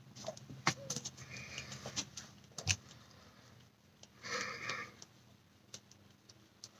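Quiet breathing through the nose: two short sniff-like breaths, about a second in and again just past four seconds, with a few faint clicks from handling things in between.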